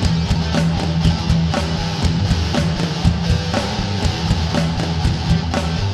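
Intro music: rock with distorted electric guitar and a steady drum beat.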